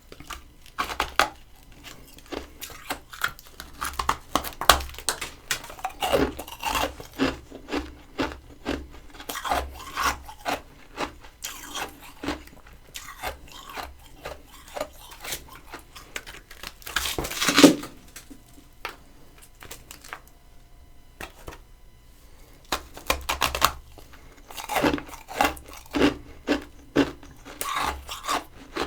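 Close-up crunching and chewing of humidifier-grown freezer frost, a run of crisp, crackly crunches. One louder, longer crunch comes about two thirds of the way through, then a short lull before the crunching picks up again near the end.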